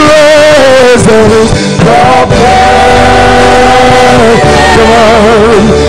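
A male worship leader sings the word 'presence' into a microphone over live band accompaniment, loud. He holds one long note in the middle and ends with a wavering vibrato.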